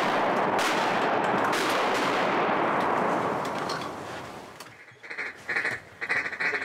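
A loud, dense rush of noise that fades away over about a second, followed near the end by a series of short, evenly repeated duck quacks.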